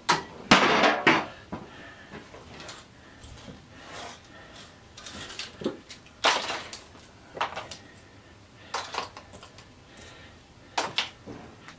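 Irregular clinks, scrapes and rattles of hand work at a metal workbench: copper windings from electric-motor stators being handled and dropped into a plastic bucket, among tools on the metal top. The loudest rattles come about half a second in and again around six seconds in.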